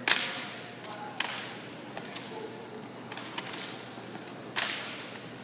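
Sharp slaps and knocks from an armed drill team's rifles and boots. There are several cracks, the loudest right at the start and another about four and a half seconds in, each echoing through a large arena.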